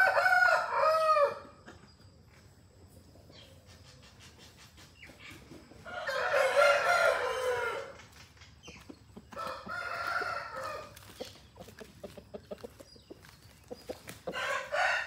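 Aseel roosters crowing, four long crows one after another: one right at the start, a loud one about six seconds in, a fainter one a few seconds later, and another near the end.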